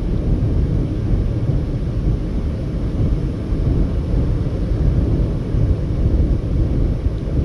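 Steady low rumble of a car driving at highway speed, with road and tyre noise and engine drone.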